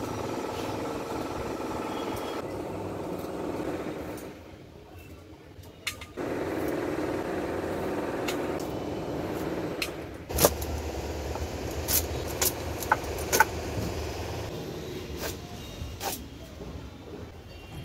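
A steady low hum, broken off for a couple of seconds near the middle. Then a run of sharp irregular snaps and clicks as Malabar spinach stems are broken by hand and a pumpkin is cut on a bonti blade.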